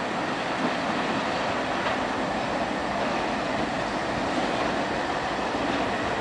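Diesel locomotives of the Western New York & Pennsylvania Railroad moving slowly past, their engines and wheels on the rails making a steady noise.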